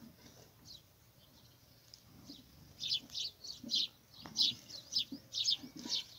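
Small birds chirping in quick, high, short chirps, sparse at first, then thicker and louder from about three seconds in.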